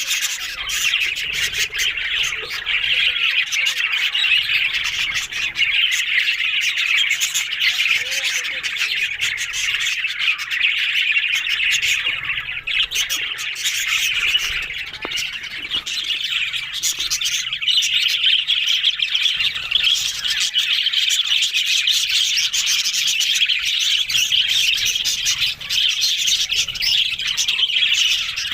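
Many budgerigars chattering at once: a dense, unbroken stream of warbles, chirps and squawks.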